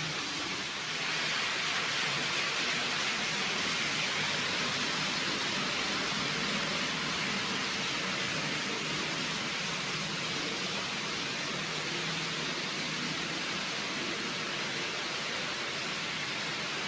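Steady, even hiss with no distinct events, a little louder from about a second in.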